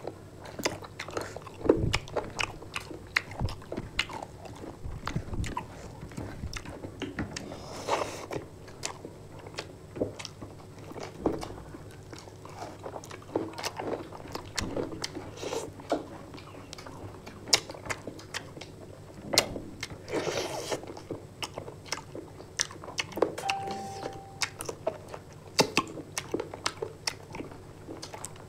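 People chewing and biting into fried chicken close to the microphone, with irregular crunches and wet mouth clicks.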